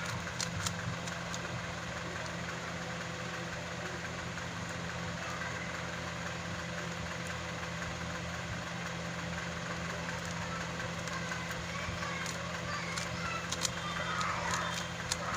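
A steady mechanical hum, with a few short sharp clicks about a second in and again near the end, from a 3x3 Rubik's cube's plastic layers being turned.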